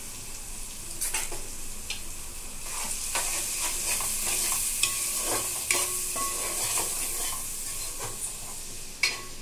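Chopped onions, green chillies and curry leaves sizzling in hot oil in an aluminium pot while a metal spoon stirs them, scraping and clinking against the pot several times.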